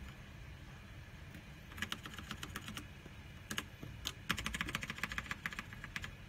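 Keys typed on a mechanical keyboard: a quick run of keystrokes about two seconds in, a few more around three and a half to four seconds, then a longer, denser run of rapid clacks until near the end.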